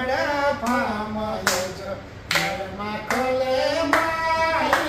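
A song playing: a voice holding long, wavering sung notes over sharp clap-like beats that come roughly every second.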